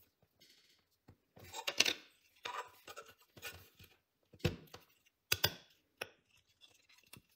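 Steel nails being pushed through holes in 3D-printed plastic parts: short scraping and clicking of metal against plastic as the parts are handled, in scattered bursts with gaps between.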